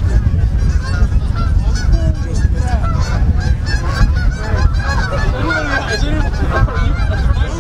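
A flock of Canada geese honking in flight, many calls overlapping continuously, over a steady low rumble.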